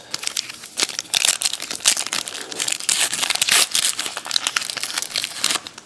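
Wrapper of a football trading-card pack crinkling and tearing as it is handled and opened, a dense run of irregular crackles that stops near the end.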